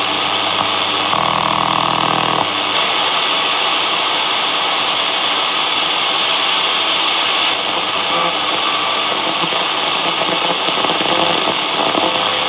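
Shortwave static hissing steadily from a National Panasonic GX300 (RF-888JB) radio's speaker between stations, with a buzzy tone lasting about a second and a half shortly after the start.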